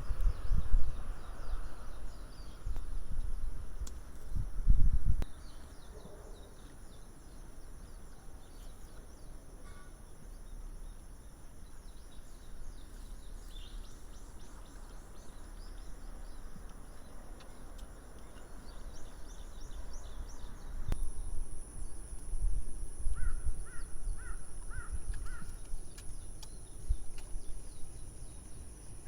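Outdoor ambience with wind rumbling on the microphone in gusts, strongest near the start and again in the last third. A crow caws five times in quick succession about two-thirds of the way through.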